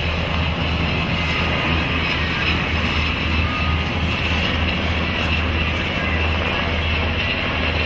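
Navy MH-60S Seahawk helicopter flying low past, its rotor and twin turbine engines making a steady low drone.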